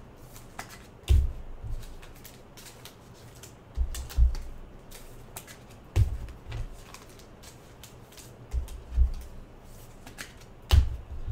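Football trading cards and their packaging handled on a table: scattered light clicks and flicks as cards are slid and flipped, with a dull knock every couple of seconds as something is set down on the table.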